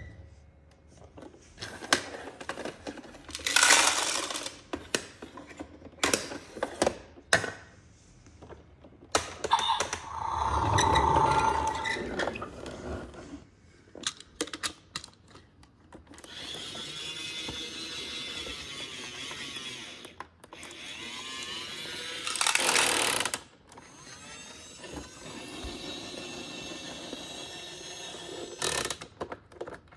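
Battery-powered toy garbage truck with small plastic bins: clicks and knocks of plastic being handled, then a small electric motor whirring steadily for several seconds, twice, as the truck's lift mechanism runs.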